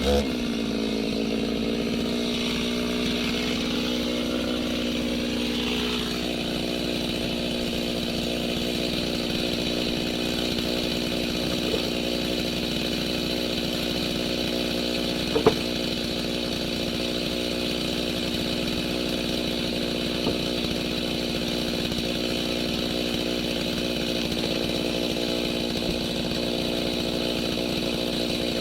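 Two-stroke chainsaw running at steady high speed under load, ripping a log lengthwise in a chainsaw mill attachment. Its pitch settles lower right at the start and then holds even, with one brief click about halfway through.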